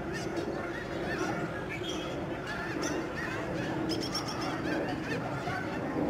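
A large flock of lesser snow geese honking, many short calls overlapping into a continuous din.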